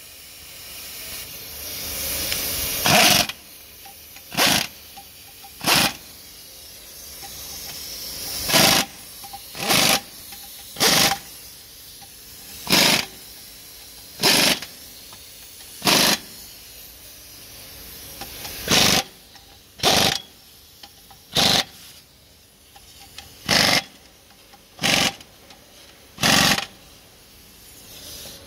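Pneumatic impact wrench firing in about fifteen short bursts, one every second or two, driving the bolts of a Mercedes-Benz Actros truck's clutch pressure plate. A steady hiss of air runs underneath and swells over the first few seconds.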